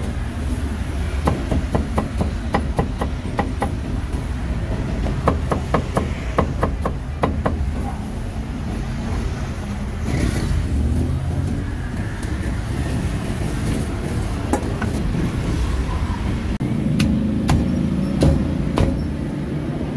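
A steel cleaver chopping cucumber on a thick round wooden chopping block: two runs of quick knocks, about three to four a second, in the first seven or so seconds, with a few single knocks later on. Under them runs a steady low background rumble.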